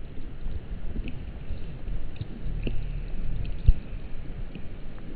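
Wind buffeting a small action camera's microphone outdoors: an uneven low rumble with scattered knocks, the sharpest about three and a half seconds in.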